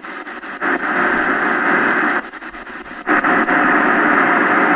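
XHDATA D-901 shortwave radio's speaker putting out static hiss while tuning the shortwave band, in two loud stretches with a brief dip at about two seconds in.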